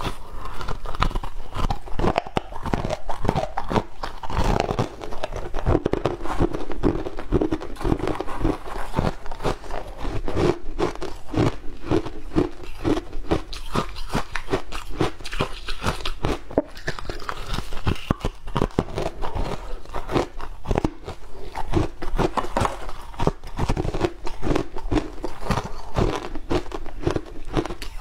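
Ice chunks crunched and chewed close to the microphone: a dense, irregular run of sharp cracks from bites and chewing.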